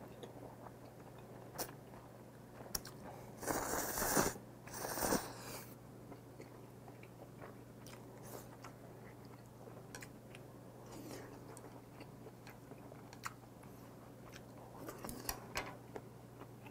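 Mukbang eating sounds: a man slurping cream carbonara buldak ramen noodles in two louder slurps about three and a half and five seconds in, then chewing with small wet mouth clicks, and a run of quicker smacking near the end.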